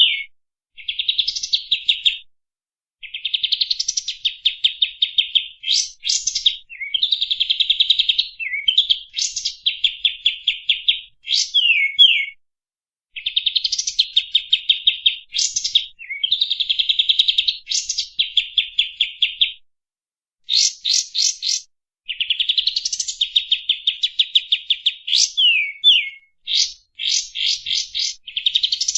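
A songbird singing over and over, the kapas tembak of an Indonesian masteran recording. Each phrase is a long, fast, high trill lasting one to two seconds, often opened or closed by quick sweeping whistle notes, with brief pauses between phrases.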